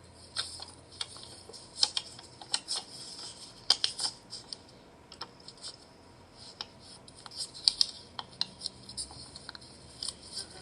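Paper cutouts being handled and moved, rustling and crinkling in short irregular crackles with light taps, busiest around the middle and again near the end.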